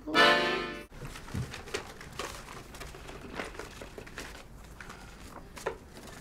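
An accordion chord held loudly and cut off abruptly about a second in, then soft rustling and light clicks of photo prints and paper being handled and sorted in a cardboard box.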